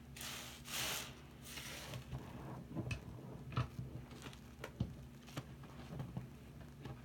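A soap-soaked sponge is squeezed and kneaded by hand in a sink of sudsy water, making wet squelching and hissing foam. Two longer hissing squeezes come in the first couple of seconds, followed by scattered short wet pops and clicks.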